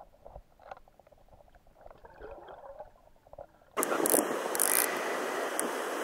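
Muffled underwater sound near a hooked carp: faint scattered knocks and gurgles heard through an underwater camera housing. A little under four seconds in, it cuts abruptly to the open-air sound of steady rushing water from the stream's waterfall, with a few sharp clicks.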